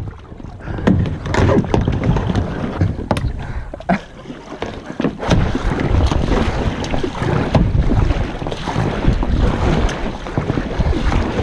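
Kayak paddle strokes splashing and dipping in the water as a kayak is paddled along, with scattered sharp knocks and wind rumbling on the microphone.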